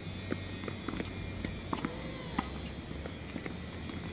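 Tennis balls being hit by rackets and bouncing on a hard court: several sharp pops at irregular intervals, over a steady low background hum.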